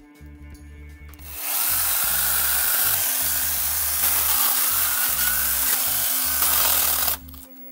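Battery-powered angle grinder fitted with a chainsaw attachment, cutting into thorny bamboo (Bambusa blumeana). It starts about a second and a half in, runs at a steady level for some five seconds and stops shortly before the end.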